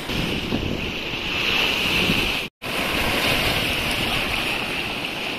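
Floodwater of a river in spate rushing and churning against stone posts, a steady rush with wind buffeting the microphone. The sound cuts out for a moment about halfway through.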